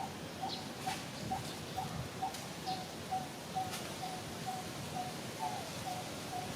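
A bird calling one short, low, hooting note over and over, about two a second at an even pace, with a few faint higher chirps from other birds.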